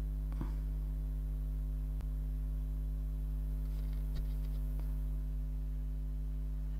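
Steady low electrical mains hum with a ladder of overtones, and a few faint computer mouse clicks.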